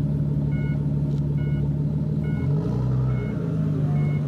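Lowered sedan's engine and exhaust running at low revs as the car rolls slowly away, a steady low drone whose pitch dips briefly about two and a half seconds in. A short electronic beep repeats about once a second under it.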